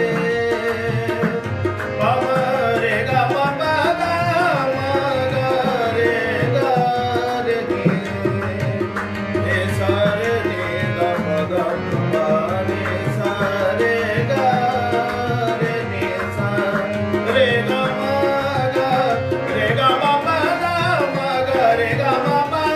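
Qawwali music: two harmoniums playing the melody over a steady tabla beat.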